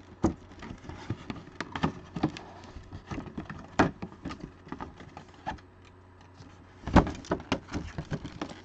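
Cardboard packaging being handled and opened by hand: a string of light clicks, taps and rustles, with one louder knock about seven seconds in.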